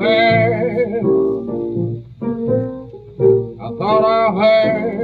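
A slow blues from a 1939 78 rpm shellac record: a man singing in a wavering voice over his own solo piano, with piano alone in the middle of the stretch.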